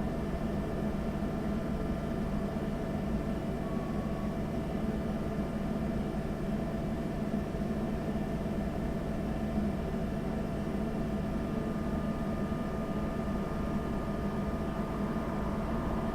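Steady electrical hum of an ATM, several constant tones over a low rumble of traffic in the background.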